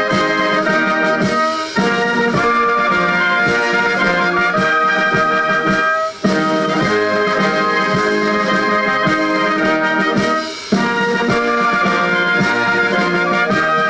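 Military wind band with brass and clarinets playing a tune in held notes, in phrases of about four seconds with a short break between each.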